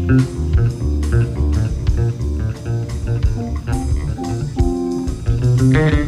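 Background music: plucked guitar notes over a bass line with a light drum kit.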